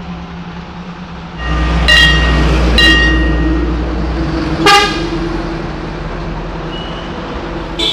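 A motor vehicle's engine rumbles close by, rising sharply about a second and a half in, with three short honks of its horn, the last and loudest near five seconds in.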